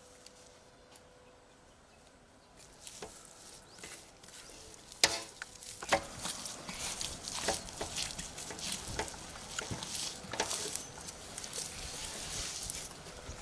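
Gloved hands rubbing and slapping a thick wet masala marinade into a large piece of raw mutton in a steel basin: irregular squelching and sticky clicking that starts a few seconds in, with two sharper smacks near the middle.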